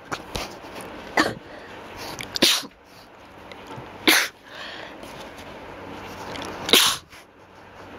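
A person sneezing repeatedly: about four sharp sneezes a second or two apart, with quieter breaths and sounds between them and the loudest sneeze near the end. The sneezes come from a slight allergy and from deliberately induced sneezing.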